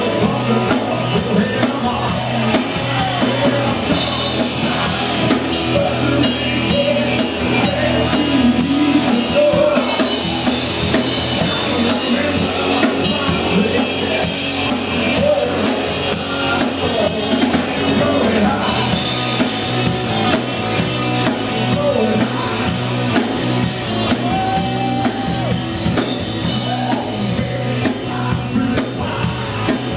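Rock music with a drum kit keeping a steady beat and a singing voice.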